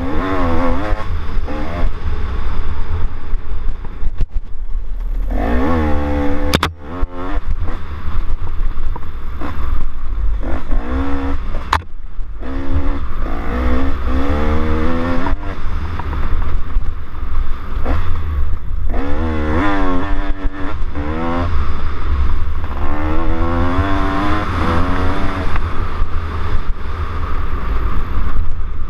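Off-road dirt bike engine revving hard, its pitch climbing and dropping again and again as the rider accelerates and shifts along a dirt trail. Wind buffeting the onboard camera adds a heavy low rumble, with a couple of sharp knocks from the bike over the terrain.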